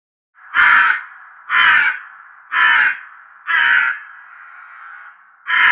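Crow cawing: four harsh caws about a second apart, then a fifth near the end, with a faint drawn-out tail after each call.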